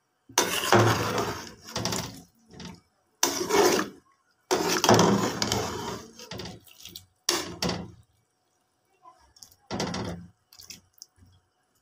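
A metal spoon stirring cauliflower florets in a metal pot of blanching water: five or six scraping, sloshing bursts with short pauses between.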